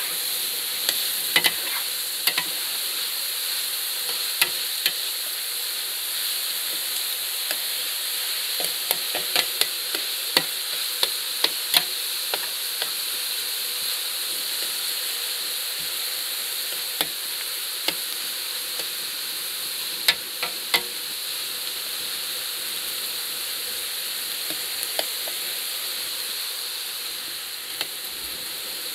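Vegetables sizzling steadily in a large plough-disc pan over a gas fire, with scattered clicks and scrapes of a utensil stirring and scraping the bottom of the pan.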